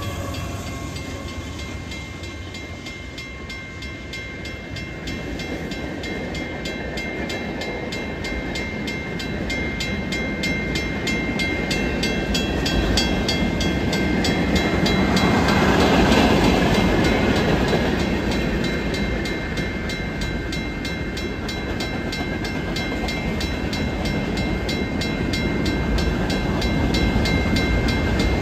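Union Pacific mixed freight train rolling past fast, the cars' wheels on the rails swelling to their loudest about halfway through. Over it, a W.C. Hayes railroad crossing bell rings with rapid, even strokes.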